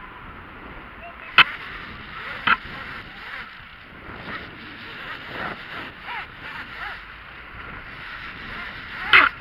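Rope running with a steady rushing sound through a metal abseil descender during a descent down a concrete wall. There are sharp knocks about a second and a half and two and a half seconds in, and a louder one near the end, plus a few faint short squeaks midway.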